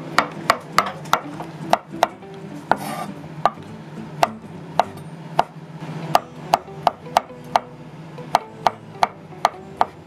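Kitchen knife dicing shiitake mushrooms on a wooden cutting board: a steady run of sharp knife strikes, about two a second.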